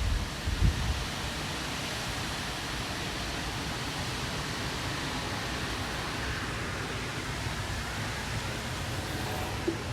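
Strong wind, around 60 mph, rushing steadily as it blows leaves and debris about. There are a few brief low rumbles just under a second in.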